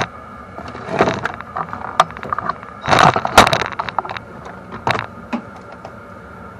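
Wrench clinking and scraping on the brake light switch's metal locking nuts and bracket in short clattering bursts, about a second in, around three seconds in and again near five seconds, as the nuts are tightened.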